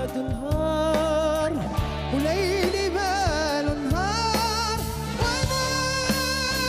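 Male vocalist singing an Arabic ballad live with a band, drawing out long wavering, ornamented notes over the band's steady accompaniment.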